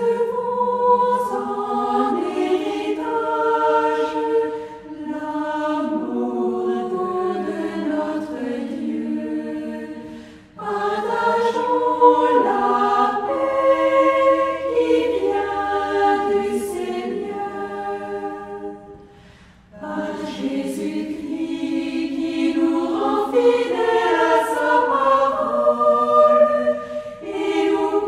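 Choir singing in slow, sustained phrases, with short breaks about ten and twenty seconds in.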